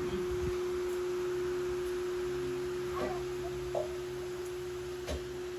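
A steady single-pitched hum over faint room noise, with a few soft knocks about three and five seconds in.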